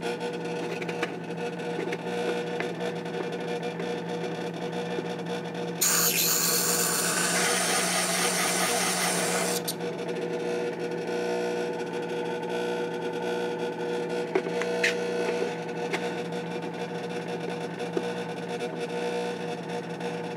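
Motorised hone with a 600-grit diamond disk running with a steady hum, while a carbide graver held in a geometry block is ground against the spinning disk. The grinding gets louder and harsher for a few seconds, from about six to ten seconds in, during the shaping grind of the graver's side.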